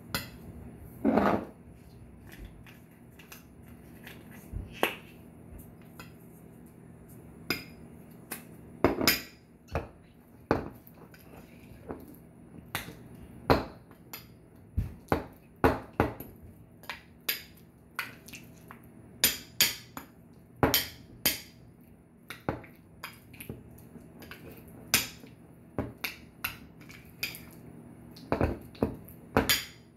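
Metal spoon clinking and scraping against a ceramic bowl while mixing butter with seasonings: irregular sharp clicks, sometimes a few in quick succession.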